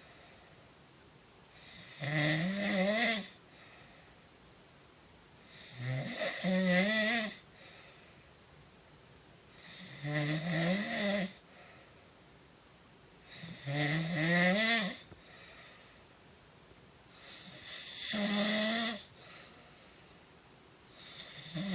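A man snoring in his sleep: one long, pitched snore about every four seconds, each wavering up and down in pitch, with quiet breaths between.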